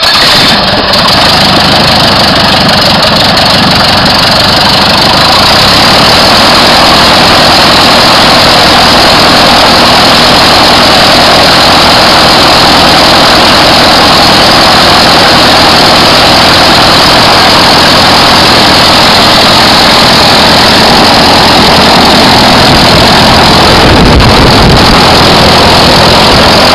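Hot Lycoming O-360 four-cylinder aircraft engine with a Rotec throttle-body injector, just fired on a hot restart and now running steadily and loudly with its propeller turning. A brief low rumble comes in near the end.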